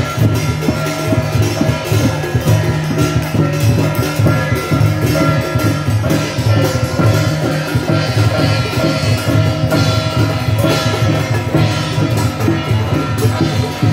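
Temple procession music: drums and other percussion struck rapidly and without pause, with a few steady pitched tones held over them.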